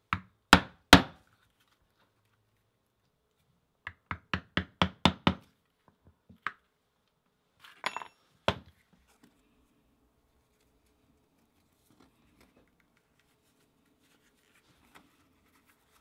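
Mallet striking a pronged stitching chisel to punch stitch holes through vegetable-tanned leather: three hard blows at the start, then a quick run of about eight strikes, and a few single knocks around the middle.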